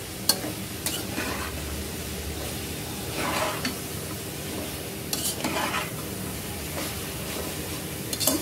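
Sliced snake gourd being stirred in a metal pot with a spatula: short scraping strokes against the pan every second or two, over a steady sizzle as the vegetables steam in their salted water.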